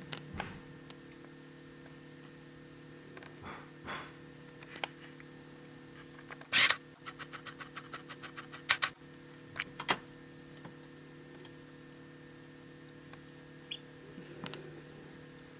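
A steady low hum runs under scattered sharp clicks and taps. About six and a half seconds in there is one loud click, then a quick run of ticks for about two seconds and a few more single clicks.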